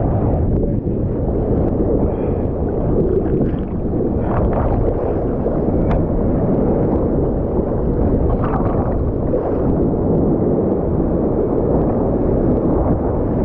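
Ocean surf washing and churning, mixed with a heavy rumble of wind on the microphone, loud and steady, with a few brief splashy surges.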